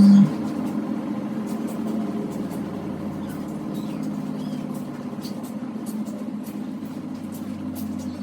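Top-load automatic washing machine running: a loud steady motor hum cuts off abruptly just after the start, leaving a quieter, wavering mechanical hum that slowly fades.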